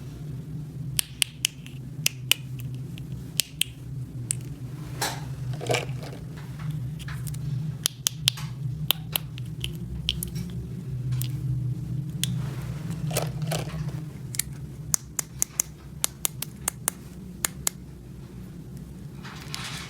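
Small plastic toy pieces clicking and tapping as they are handled and fitted together, in irregular sharp clicks over a steady low hum.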